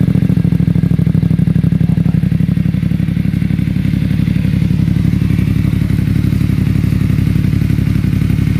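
BMW F900R parallel-twin engine idling steadily through an Akrapovic carbon slip-on exhaust, still on a cold start.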